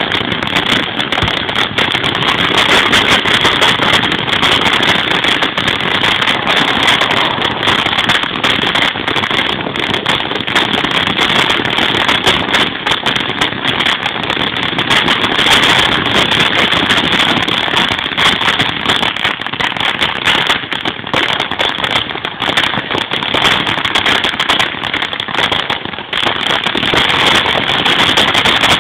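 Ground fountain firework spraying sparks: a steady, loud hissing crackle packed with rapid small pops.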